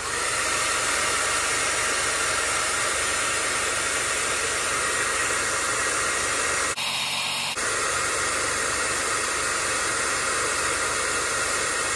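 Handheld hair dryer running steadily, a hiss of blowing hot air aimed at a battery's temperature sensor to trip its high-temperature charge cutoff. The sound changes briefly about seven seconds in.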